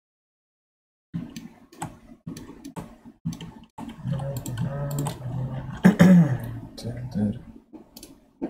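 Computer mouse clicks and keyboard keystrokes, short and irregular, with a low wordless voice sounding for a few seconds in the middle.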